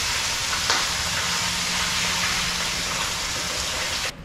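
Fish frying in hot oil over a propane burner: a steady sizzle that stops abruptly near the end.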